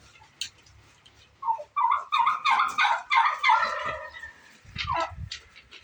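A domestic tom turkey gobbles: one rapid, rattling run of calls starting about one and a half seconds in and lasting a couple of seconds. A few low knocks and a short falling call follow near the end.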